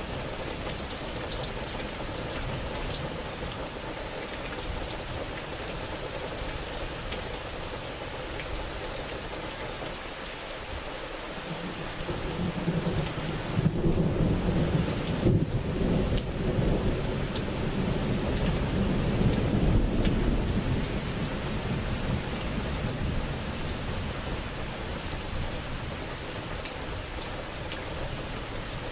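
Steady rain falling, with a long low rumble of thunder that builds about twelve seconds in, peaks, and fades away over roughly ten seconds.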